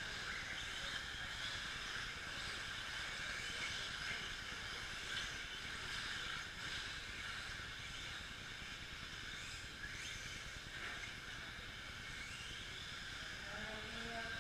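Electric 2WD short course RC trucks racing on a dirt track: a steady hiss of motors and tyres, with faint whines rising and falling as the drivers work the throttle.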